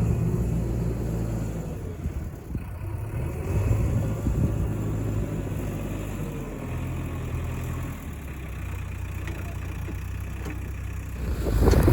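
JCB 3DX backhoe loader's diesel engine running, its engine speed rising and falling as it works, louder near the end.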